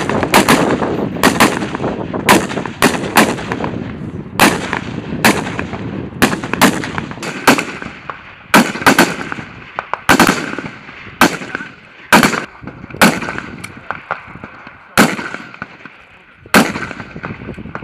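Several CZ BREN 2 assault rifles firing single shots on a firing line: sharp cracks at uneven spacing, about one to three a second, each with a short echo, and a short lull near the end.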